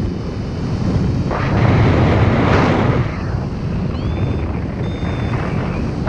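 Wind buffeting the microphone during paragliding flight, a steady rush that swells into a louder gust in the middle. Near the end a few faint, short, high beeps from the paraglider's variometer sound over the wind, one of them gliding upward in pitch.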